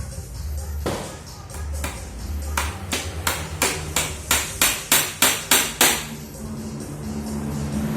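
Hammer driving nails into a wooden packing crate: a few scattered blows, then a run of about ten strikes at roughly three a second, growing louder, ending about six seconds in.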